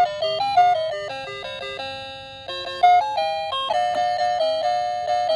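Musical toy telephone playing a simple beeping electronic tune. About three seconds in a new tune starts, with one note repeated in quick pulses.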